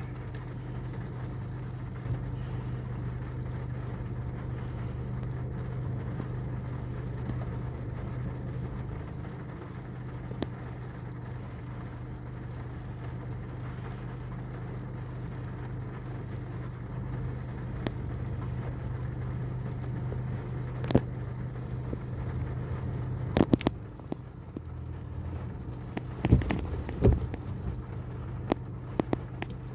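A vehicle engine running with a steady low hum, with several sharp clicks and knocks in the last third.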